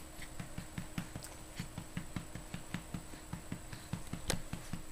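Steady, rhythmic patting on a baby's back to bring up a burp, about four soft pats a second, with one sharper tap about four seconds in.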